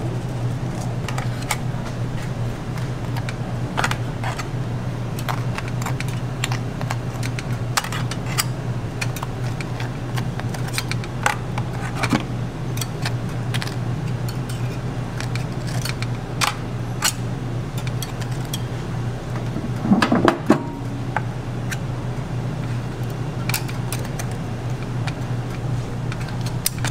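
Metal spatula and tongs clicking and scraping against a stainless wire rack as waffles are handled, in scattered sharp clicks with a louder clatter about two-thirds of the way through, over a steady low hum.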